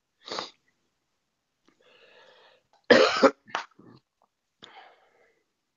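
A person coughing: one short cough, then a louder run of two or three coughs about three seconds in, and a weaker cough near the end.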